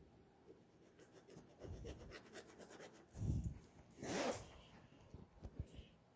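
A ballpoint pen scribbling on lined paper, faint scratching strokes, broken by a couple of low thumps and a short rustle about four seconds in as the phone filming is moved.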